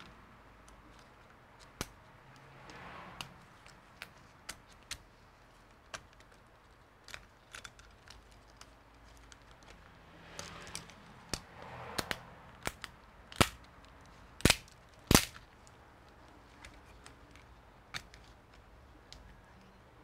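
Scattered sharp clicks and taps of tools and small parts being handled during laptop repair work, with a few louder clicks a little past the middle and soft rustling twice.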